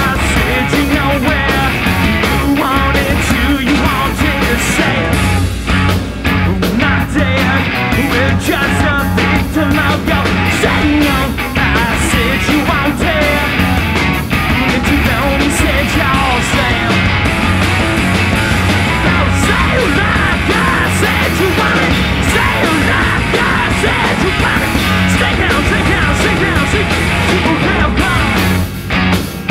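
Live punk rock band playing loud: electric guitars and a drum kit, with a singer yelling into the microphone. The band briefly drops out near the end.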